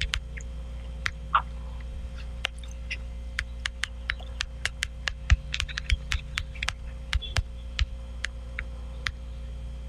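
Typing on a smartphone touchscreen keyboard: a run of short, irregular key clicks, a few a second, over a steady low hum.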